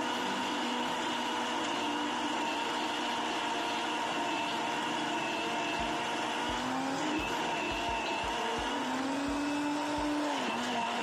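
Countertop electric blender running steadily on a jug of white blended drink, a constant motor whine whose pitch wavers up and down twice in the second half. A few dull low knocks sound between about six and ten seconds in.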